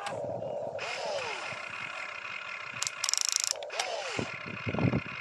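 Toy RC excavator's small electric motors whining in short rising and falling glides as the boom and arm move, with a fast rattling gear ratchet about three seconds in. A few low thumps near the end as the bucket works the dirt.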